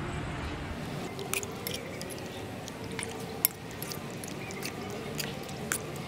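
Metal spoon stirring thick rice porridge in a ceramic bowl: soft wet squishing with scattered light clicks of the spoon against the bowl, and one sharper click about three and a half seconds in.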